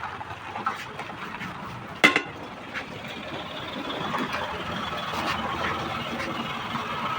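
Metal work on a homemade air-powered tyre bead-breaker press: one sharp metallic clank about two seconds in, then a steady noise that slowly grows louder.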